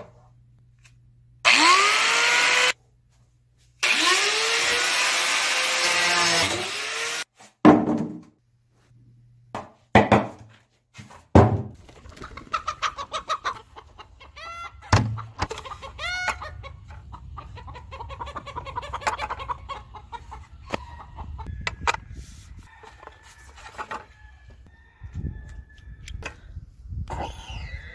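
Angle grinder with a cutting disc running and cutting into a plastic barrel, in two long loud bursts with the pitch sliding as it spins up and bogs. After a few knocks, farmyard animal calls follow outdoors.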